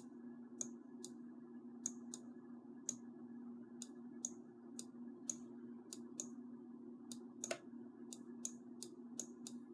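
Irregular sharp clicks, about two a second, from input on a computer as someone writes out letters, over a steady low hum.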